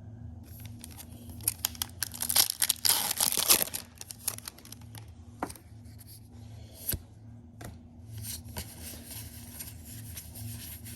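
Foil wrapper of a trading-card booster pack being torn open, a crinkling rip about two seconds in, followed by a few light clicks and softer rustling of the wrapper and cards being handled.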